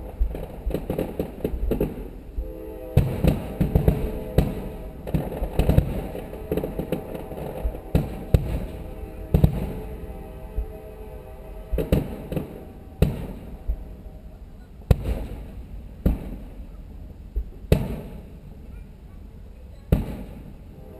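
Aerial firework shells bursting: a fast run of bangs and crackles for the first several seconds, then single booms spaced a second or two apart.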